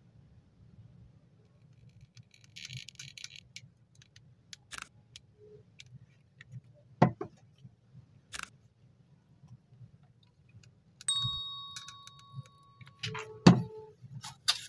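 Small clicks and a brief rustle of hands handling a 9-volt battery and thin copper wire, with a few sharp clicks. About eleven seconds in, a notification-bell chime from a subscribe-button animation rings out and fades over a couple of seconds.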